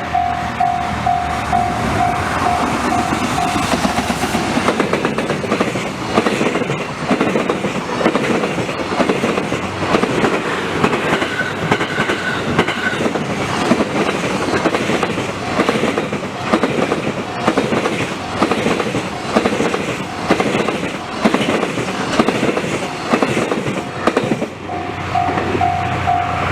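Japanese level-crossing alarm ringing in even, rapid pulses, drowned out about four seconds in by a Tokaido Main Line train passing close by, its wheels clicking over the rail joints in a steady rhythm for about twenty seconds. The crossing alarm is heard again near the end as the train clears.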